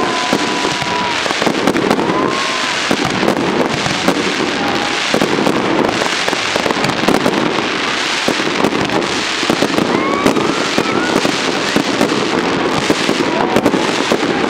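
Aerial fireworks display: a continuous rapid crackling and banging of bursting shells and crackling stars, with a few short rising whistles now and then.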